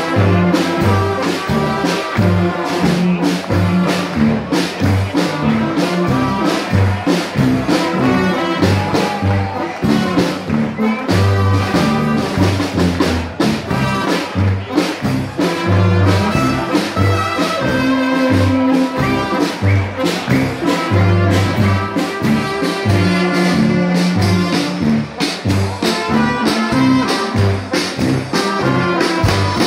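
Live brass band playing: trombones, trumpets and tuba over a bass drum and snare, with a steady beat.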